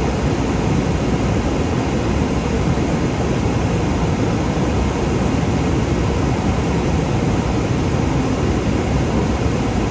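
Steady in-flight cockpit noise of an aircraft at high altitude: an even rushing of airflow and cabin air, heaviest in the low range.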